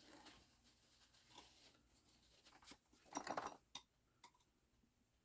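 Near silence, with a short burst of light clicks and a rattle about three seconds in, then two single clicks: small pump parts handled on a workbench.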